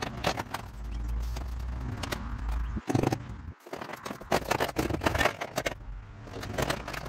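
Vinyl siding panels being handled and worked back into place: the plastic scrapes, rattles and clicks in a string of short sharp snaps.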